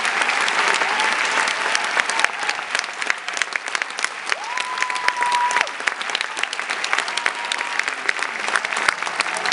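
Large audience applauding with steady, dense clapping, and a held high note from someone in the crowd lasting about a second near the middle.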